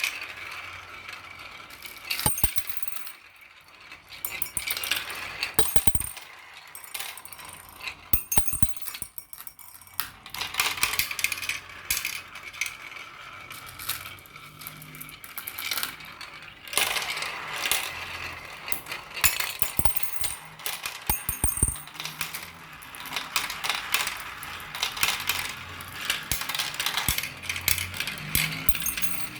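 Marbles rolling and clacking down a marble run track: a steady rolling rattle with many small sharp clicks as the marbles hit each other and the track.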